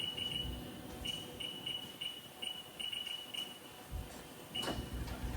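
About a dozen short, high beeps at one pitch, at irregular intervals, from the Haas CNC control's keypad as keys are pressed to set up a spindle test. A single click comes near the end.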